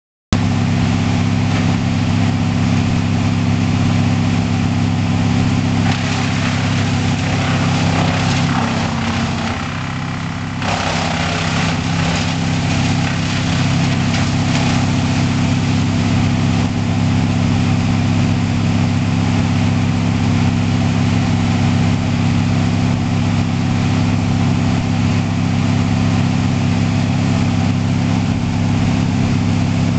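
Wood chipper's engine running steadily at a constant speed, dipping briefly in level about ten seconds in.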